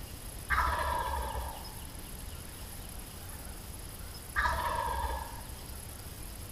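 Wild turkey gobbler gobbling twice, about four seconds apart, each gobble a rattling call of about a second that falls in pitch.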